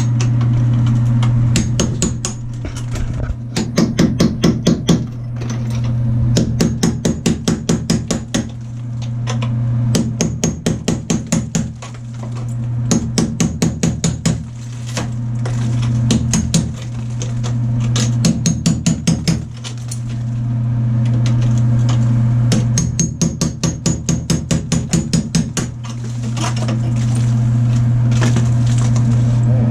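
Hammer knocking out ceramic wall tile and its thick mortar bed. The strikes come in quick bursts of several a second, with short pauses between, over a steady low hum.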